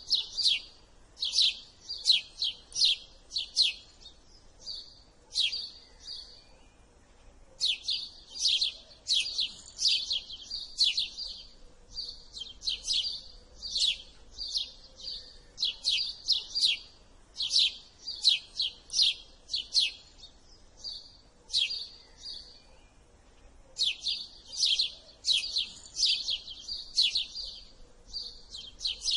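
House sparrow chirping: rapid runs of sharp, repeated chirps in bouts, broken twice by pauses of a second or two.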